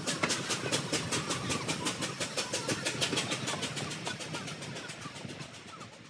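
Steam locomotive sound effect: rapid, evenly spaced chuffs, fading away.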